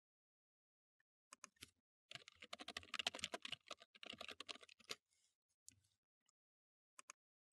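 Computer keyboard typing: a quick run of keystrokes lasting about three seconds, with a few separate clicks just before it and two sharp clicks near the end.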